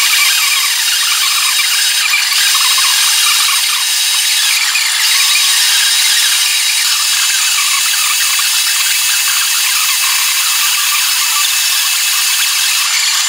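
Half-round bastard file scraping against a cast aluminum handwheel, knocking off the casting flash: a continuous, loud hissing scrape with small dips.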